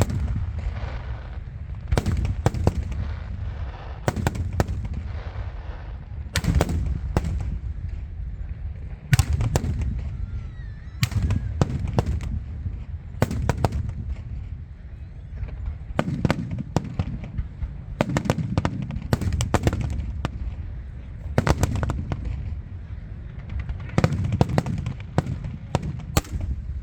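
Aerial fireworks bursting: sharp bangs come in quick clusters every couple of seconds, each followed by a low rolling rumble.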